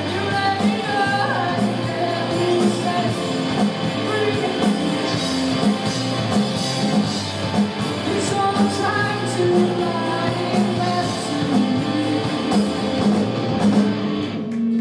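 Live rock band playing with a singer, drums and guitar; the music breaks off just before the end.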